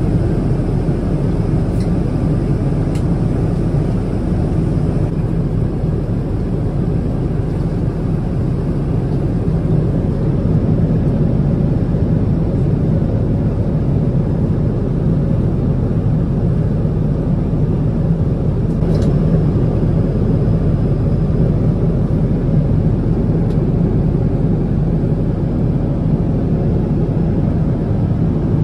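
Steady cabin noise inside a Boeing 777-200ER in cruise, heard from an economy seat: a constant low rumble of engine and airflow noise.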